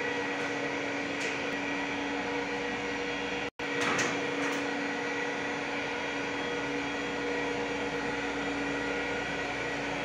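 Air-conditioning equipment running with a steady hum and whir. It cuts out for an instant about three and a half seconds in, and a brief louder noise follows just after.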